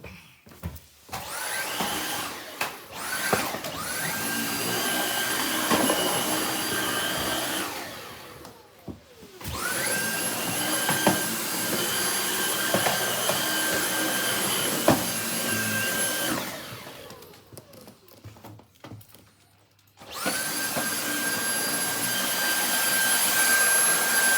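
Cordless Dyson vacuum cleaner switched on and off repeatedly: a couple of short blips near the start, then three longer runs of several seconds, each spinning up to a steady high whine. A few sharp knocks sound during the runs.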